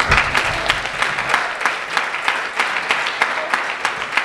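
Congregation applauding: many people clapping.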